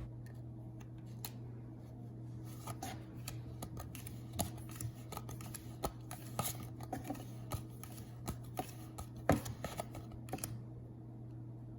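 Playing cards being handled and pushed through the hands, giving irregular light clicks and snaps of card stock, with the sharpest snaps about six and a half and nine seconds in. A steady low hum runs underneath.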